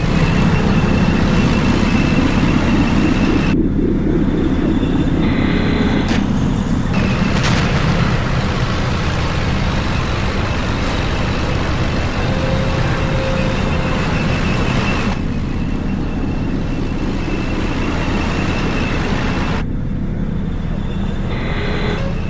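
Heavy tank engine sound running with a steady low rumble; the higher hiss above it cuts out twice for a few seconds.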